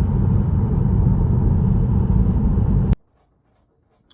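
Loud motor-vehicle rumble that cuts off abruptly about three seconds in, followed by near silence.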